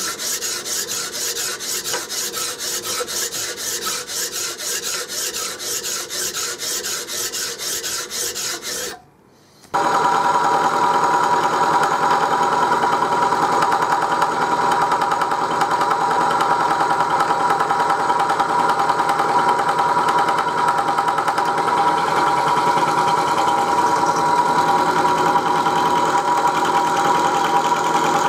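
Hand file rasping in repeated strokes across a metal locomotive buffer beam, filing the rivet heads down flush. After a brief drop to quiet about nine seconds in, a machine tool's spindle runs steadily with a constant high hum as the cutter works the metal.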